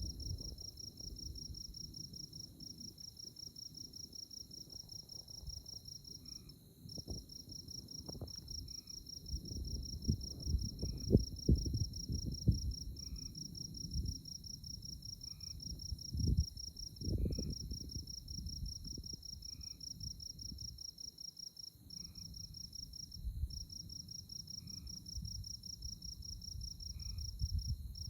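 A night chorus of prairie insects: a continuous, rapidly pulsing high trill that breaks off briefly a few times, a steady high whine beneath it, and a softer chirp repeating about every two seconds. Irregular low rumbles and knocks come and go underneath and are loudest around the middle.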